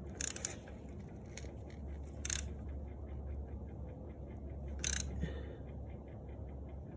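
A new oil filter being screwed onto a motorcycle engine by hand: four short sharp clicks and scrapes of handling, the loudest a little over two seconds in and again about five seconds in, over a steady low hum and a faint fast ticking of about five a second.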